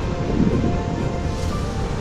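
Steady wind rush on the microphone of a dual-sport motorcycle riding at highway speed, with the bike's engine running underneath.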